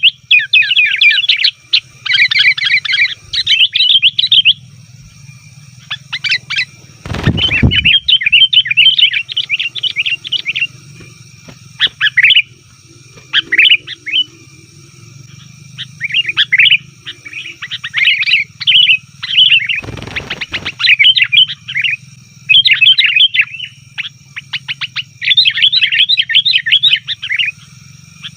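Sooty-headed bulbuls (kutilang) chattering busily, bursts of quick bright notes following one another with short gaps. Two brief low thumps break in, about 7 seconds and 20 seconds in.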